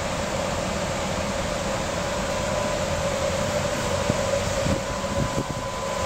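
Steady fan-like mechanical hum inside a small school bus, with a faint high whine running through it, and a few soft knocks near the end.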